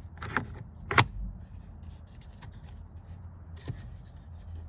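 Small metal parts being handled: two sharp clicks or knocks, the louder about a second in, then faint scattered ticks over a steady low hum.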